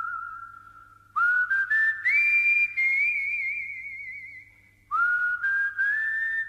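Whistled tune, one clear melodic line. A held note with vibrato fades out in the first second. A new phrase then climbs in steps to a long high note with vibrato that slowly fades, and another phrase starts about five seconds in.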